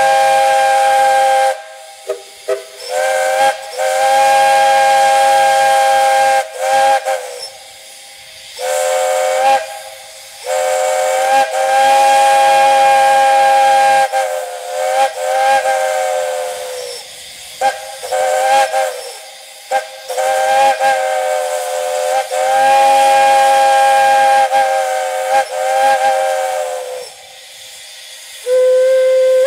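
Chime steam whistle blown in a series of long blasts and short toots, several tones sounding together as a chord. The pitch dips and wavers as the valve is worked, the longest blasts lasting about three seconds.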